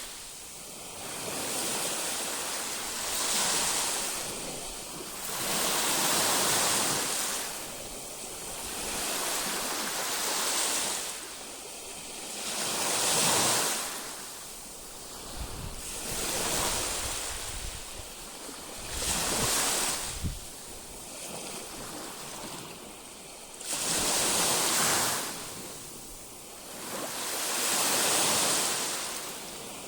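Baltic Sea waves breaking on the shore, each surge of surf swelling and washing back about every three to four seconds. Wind buffets the microphone with a low rumble in the middle.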